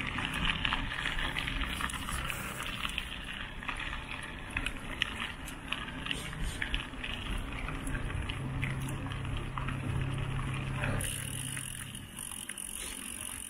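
A mountain bike being ridden: tyres rolling on a path with a continuous noise and many small clicks and rattles from the bike.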